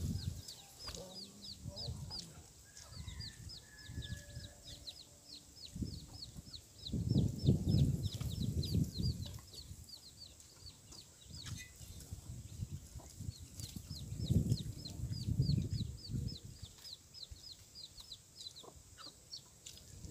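Chickens clucking, with two louder spells about seven and fourteen seconds in, over a steady run of short high chirps repeating about three a second.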